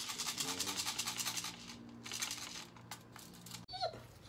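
Loose steel BBs rattling inside an Umarex Steel Force CO2 BB gun as the gun is shaken to feed them into its loader, a fast continuous rattle that stops about three seconds in.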